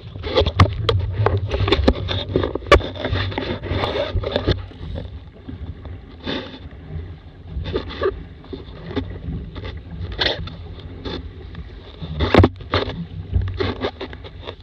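Wind buffeting an action camera's microphone in a steady low rumble, with water splashing and slapping against a Laser sailing dinghy's hull in irregular sharp hits as it sails through chop. The splashing is busiest in the first four seconds, with single loud slaps around six, ten and twelve seconds in.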